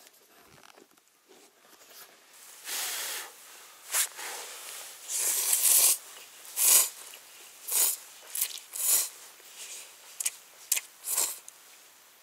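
A man eating ramen noodles close to the microphone: a string of about nine mouthfuls, some brief, some nearly a second long, starting about two and a half seconds in.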